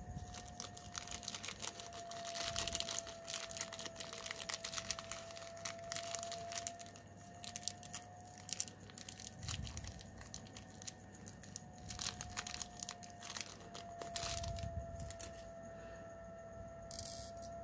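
Small clear plastic parts bag crinkling and rustling in the hands, with scattered light clicks, as tiny metal RC coupler parts are worked out of it.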